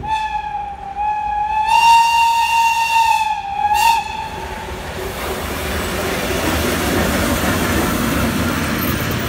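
An electric railcar's air whistle sounding one steady note for about four seconds, with a short dip near the start. A steady hissing noise follows.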